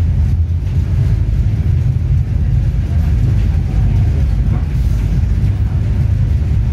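Steady low rumble of a moving passenger train, heard from inside the carriage.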